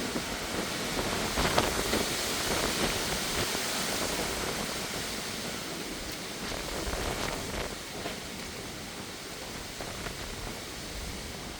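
Strong thunderstorm wind gusts rushing through trees as rain begins, the wind buffeting the microphone. A few brief knocks sound near the start and about seven seconds in, and the rush eases slightly toward the end.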